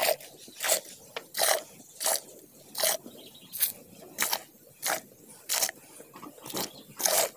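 Hand milking of a cow: milk squirting into a steel pail half full of frothy milk, one short squirt about every three-quarters of a second in an even rhythm.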